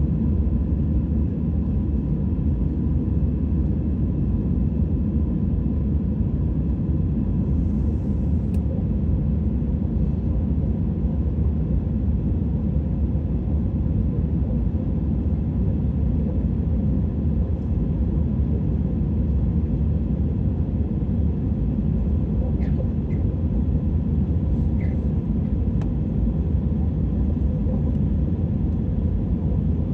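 Steady low rumble of jet airliner cabin noise from the engines and airflow, with a few faint ticks.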